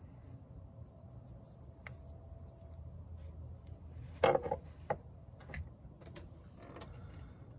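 Hand handling of the removed oil filter adapter and its threaded center tube: light clicks and clinks of hard parts, with a louder clatter about four seconds in and two smaller knocks soon after.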